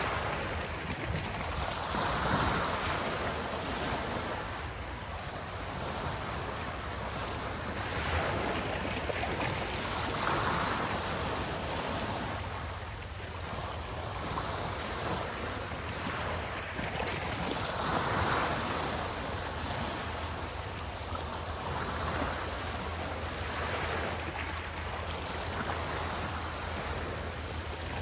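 Small waves washing onto a shore, swelling and fading every few seconds over a steady low rumble.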